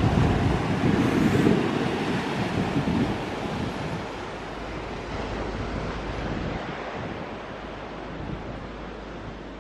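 Surf washing over rocks on a shore, with wind rumbling on the microphone, strongest in the first three seconds and then easing to a steadier hiss.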